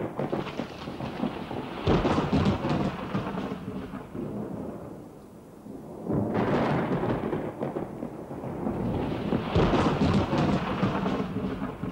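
Thunderstorm: peals of thunder break suddenly about two, six and ten seconds in, each rolling and dying away over a few seconds, over a hiss of rain.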